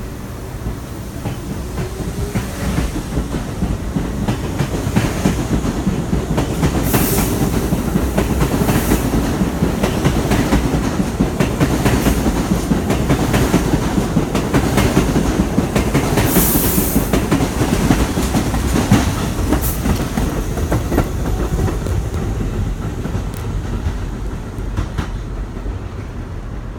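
New York City Subway 1 train rolling past, its wheels clacking rapidly over the rail joints as the rumble builds, holds and fades away. Two short high-pitched bursts come about seven and sixteen seconds in.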